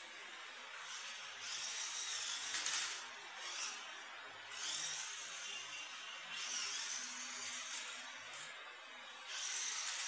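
Electric RC rock crawler being driven in bursts: its motor and gears whir in several surges, each a second or two long, the whine rising and falling with the throttle.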